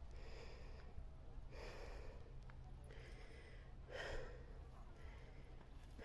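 A person breathing hard while hiking, with faint breaths about every second and a half; one near the middle is louder.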